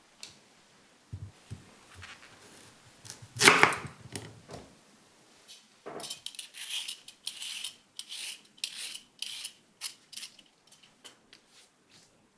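A Y-shaped vegetable peeler scraping the skin off a carrot in about ten quick strokes, roughly three a second, starting about six seconds in. Earlier there is one loud knock, something set down on the wooden cutting board.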